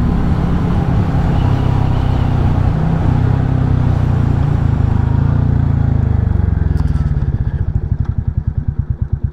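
Royal Enfield Classic 350's single-cylinder engine riding at road speed under a rush of wind. About five to six seconds in, the engine note falls and the wind dies away as the bike slows for a stop sign, and near the end the engine settles into a slow, even thumping at low revs.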